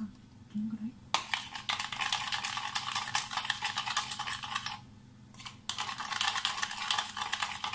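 Metal spoon beating rapidly against the inside of a plastic mixing bowl, a fast run of clicks and scrapes. It stops briefly about five seconds in, then starts again.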